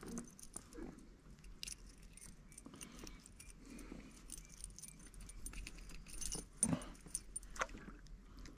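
Quiet handling noises: scattered light clicks and a small metallic jingle, as a freshly caught perch and the metal spinner lure are handled.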